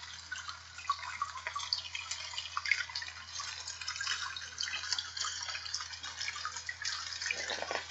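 Rain falling: a dense, irregular patter of small drips that runs on steadily, with a low steady hum underneath.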